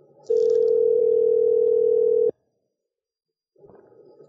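Telephone ringback tone on an outgoing call: one steady ring about two seconds long that cuts off abruptly, over a faint line hiss.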